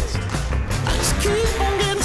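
Pop music with a steady beat and a held melody note about halfway through.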